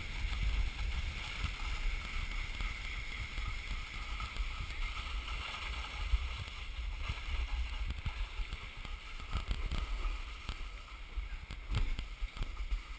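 Snowboard sliding over packed snow, a steady scraping hiss, with rumbling wind and small knocks on the helmet-mounted GoPro's microphone.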